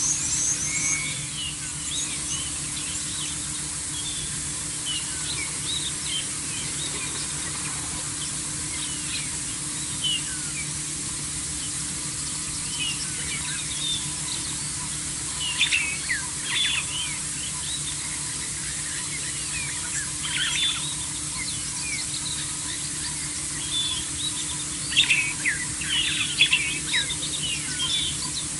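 Wild birds chirping and calling in short scattered bursts, busier in the second half, over a steady outdoor hiss and a faint low hum.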